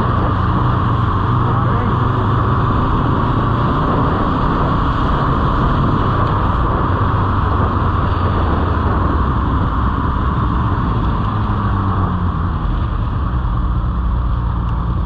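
Motorcycle engine running steadily at cruising speed, with heavy wind and road noise from riding.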